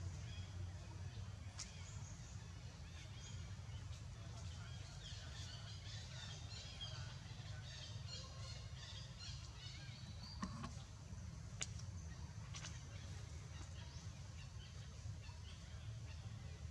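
Faint outdoor ambience: small birds chirping, thickest in the middle, over a steady low rumble, with a few sharp clicks.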